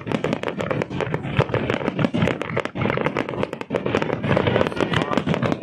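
Fireworks display going off: a dense, rapid string of bangs and crackles from many shells and fountains firing at once.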